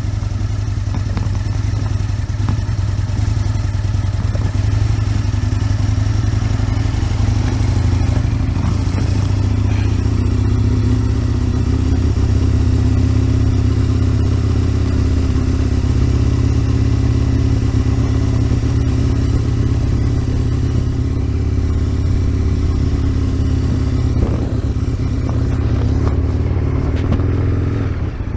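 Aprilia RSV Mille's 998 cc V-twin engine running steadily at a fairly constant engine speed, as the bike is ridden. It runs through an exhaust the owner calls too loud and means to replace.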